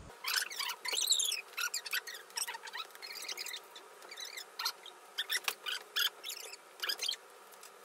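Fast-forwarded room sound: voices and the noise of moving bedding, sped up into quick, high-pitched squeaks and chirps.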